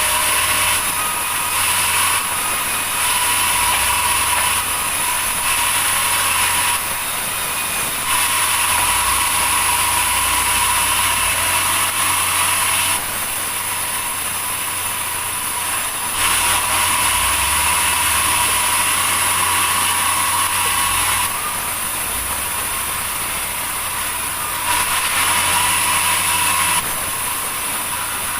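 Sawmill machinery running continuously, with a steady hum and a high whine. Louder stretches of several seconds alternate with quieter ones.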